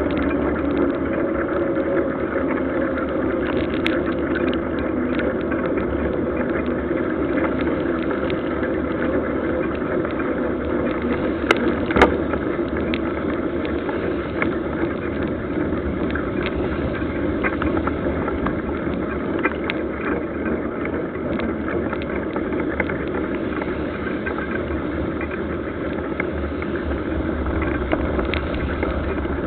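Steady wind and tyre noise from a mountain bike rolling along a wet road, with small rattling clicks from the bike throughout and one sharp knock about twelve seconds in.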